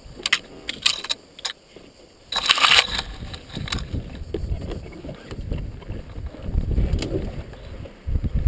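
Pine branches and needles crackling and scraping against the quad and the helmet camera in short bursts, the thickest about two and a half seconds in. Then a low, uneven rumble.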